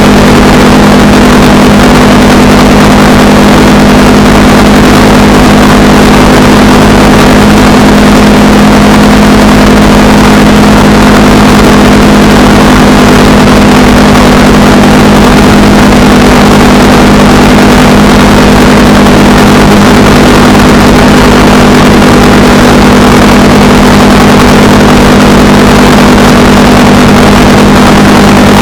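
Honda Rebel 300's single-cylinder engine running steadily at cruising speed, with wind rushing over the microphone.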